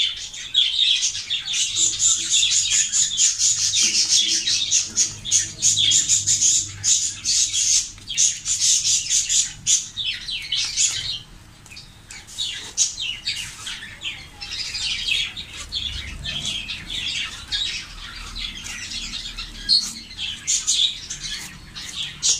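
Birds chattering: many overlapping chirps and squawks, thinning out briefly around the middle.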